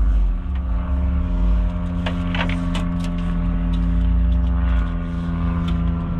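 A steady mechanical hum of fixed pitch, with wind rumbling on the microphone and a few light clicks about two to three seconds in.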